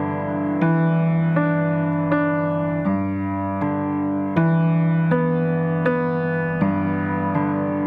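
Background music: a piano or electric piano playing a slow melody, a new note or chord struck about every three-quarters of a second.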